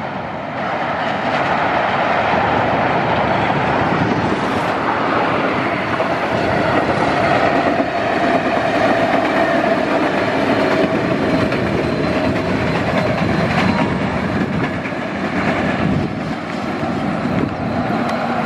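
Diesel-electric locomotives running light, without coaches, along the track: continuous engine and rail noise as they pass.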